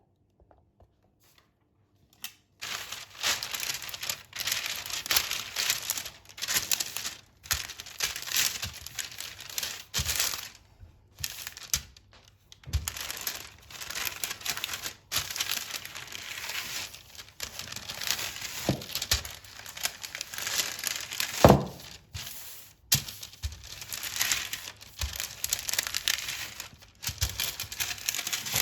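Crinkling and rustling of something being handled, starting a couple of seconds in and going on in irregular bursts with short pauses, with a sharper knock about two thirds of the way through.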